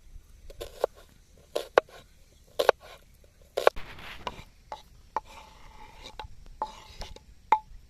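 Knife chopping food in about nine irregular strokes. A few of the strokes leave a short ringing tone.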